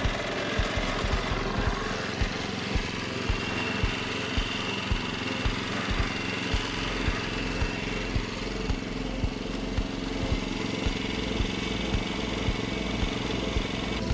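Swardman Edwin 2.0 gas-powered reel mower running steadily while cutting grass, with a sharp tick repeating about twice a second.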